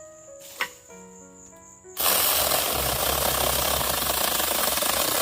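Background music, then about two seconds in a cordless battery-powered mini chainsaw starts running loud and steady, holding until just before the end.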